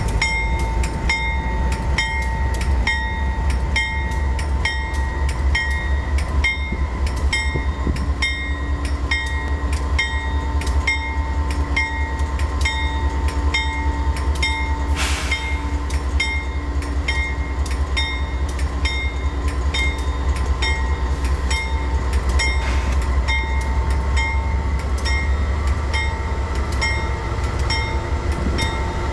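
Railroad crossing bell ringing steadily, about two strikes a second, over the low rumble of an approaching Union Pacific diesel freight locomotive, which comes alongside near the end.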